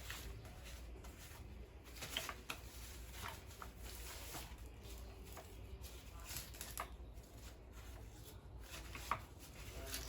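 Faint, scattered light clicks and taps of small objects being handled, a few a second at irregular intervals, over a low steady room hum.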